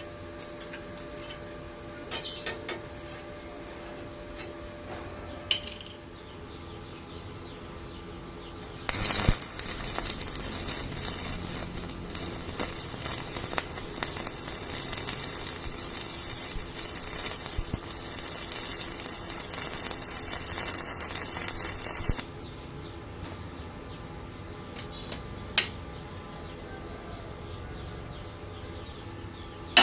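Electric arc welding: a dense, steady crackling hiss of the arc that starts sharply about nine seconds in and cuts off about thirteen seconds later. Before and after it there is a low steady hum with a few sharp metallic clicks.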